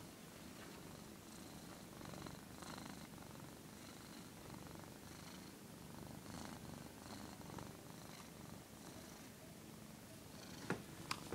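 Black-and-white domestic cat purring close to the microphone, the purr pulsing with each breath. Two sharp clicks near the end.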